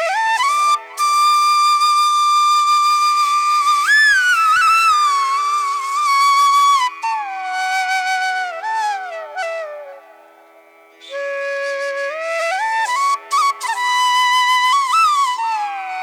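Background music: a slow solo melody of long held notes with sliding, ornamented pitch changes over a steady low drone, breaking off briefly about two-thirds of the way through.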